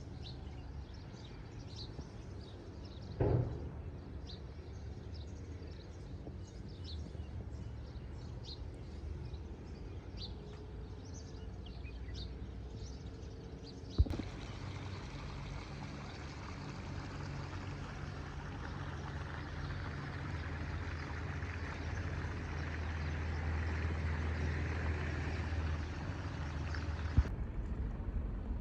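Outdoor ambience with small birds chirping, many short high calls, and one brief louder sound about three seconds in. About halfway through it cuts to a steady rushing noise over a low hum that slowly builds, then cuts again near the end.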